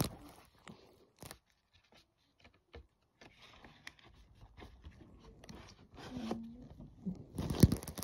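Sporadic handling noise: faint clicks, scrapes and rustles of objects being moved about, busier near the end.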